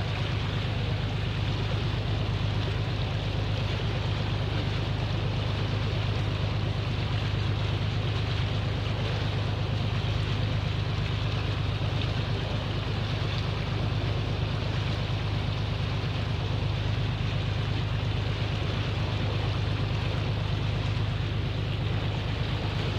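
Boat engine running steadily as a low, even hum, with the rush of water and wind alongside.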